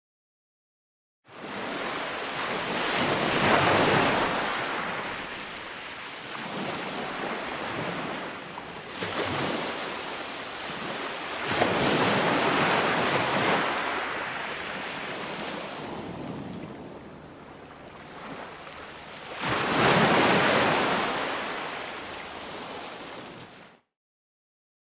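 Ocean waves breaking and washing in, a rushing surf that swells three times, about 3 s, 12 s and 20 s in, and ebbs between. The sound cuts to dead silence for about the first second and again about a second before the end.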